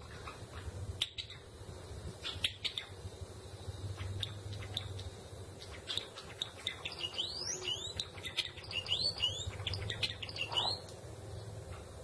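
Java sparrow singing: scattered short clicking notes, then in the second half a quick run of rising, bending chirps that stops abruptly near the end.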